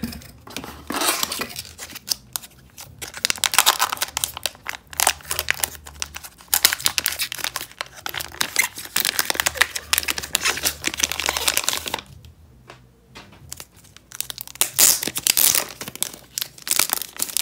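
Glossy black plastic wrapper of a sports-card pack crinkling and tearing as it is pulled open by hand. The crinkling stops about twelve seconds in and starts again a couple of seconds later as the cards and plastic are handled.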